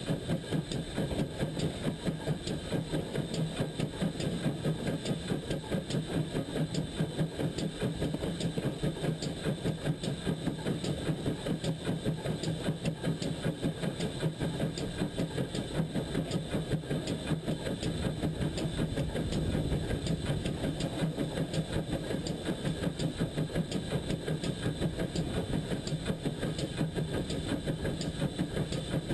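GWR pannier tank steam locomotive running along the line, its sound made up of a fast, even rhythm of beats that stays steady throughout.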